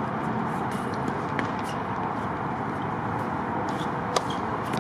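Steady outdoor background noise with a single sharp tennis ball strike about four seconds in.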